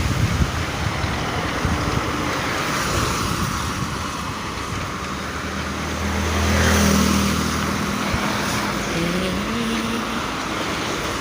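Road traffic noise heard while travelling along a city street: a steady rush of tyres and wind. A vehicle engine hum swells and fades about six to eight seconds in, and an engine note rises briefly near the end.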